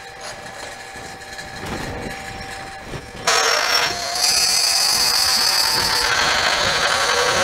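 A wood lathe boring a mesquite duck-call blank with a 5/8-inch spade bit fed from the tailstock. About three seconds in, a sudden loud, steady drilling noise starts as the bit cuts into the wood, and it carries on to the end.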